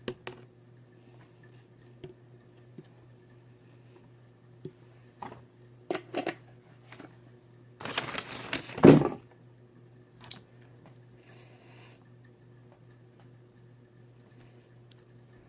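Scattered light taps and clicks of hands handling slime containers, with a louder rustling scrape about eight seconds in that ends in a sharp knock, over a faint steady hum.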